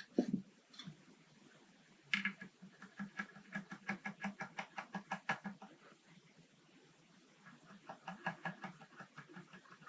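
Quick series of light taps, about four or five a second, knocking the old nut of a Strat-style electric guitar loose from its slot. The tapping pauses in the middle, then a second run starts near the end.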